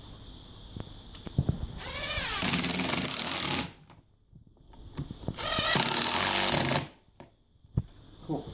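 Ryobi 18V cordless impact driver running in two bursts of about two seconds each, a second and a half apart, driving a screw to fasten a plastic couch foot to the couch frame. A few light handling clicks come before and after.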